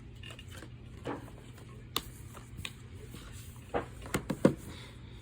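Handling of a plastic Blu-ray case and its cardboard slipcover: scattered light clicks and taps, with a small cluster of them near the end, over a low steady hum.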